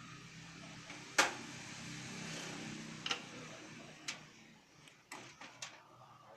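Clicks and knocks of a hard drive and its cable connectors being handled and unplugged inside a desktop PC case: one sharp click about a second in, then a soft scraping, then several lighter clicks.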